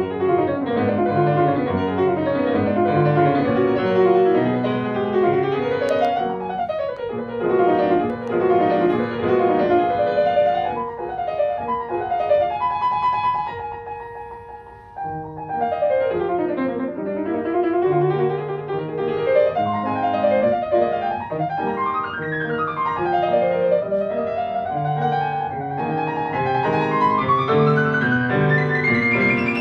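Grand piano played live in classical style: fast passagework with rapid scale runs sweeping up and down the keyboard over a moving bass. It drops briefly quieter about halfway through, then picks up again.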